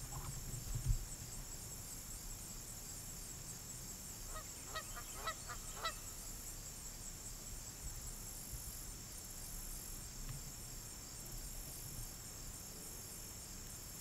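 A few short goose honks in quick succession, about four to six seconds in, over a steady high-pitched insect chorus.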